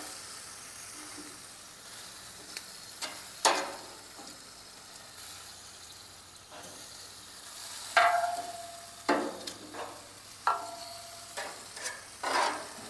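Chicken wings sizzling steadily on a grill, with several sharp clicks and knocks of metal on the grate as the pieces are turned and moved; two of the knocks leave a brief ringing tone.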